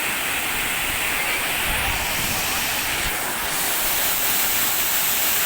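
Waterfall running: a steady, loud rush of falling water, with a few low thumps about two to three seconds in.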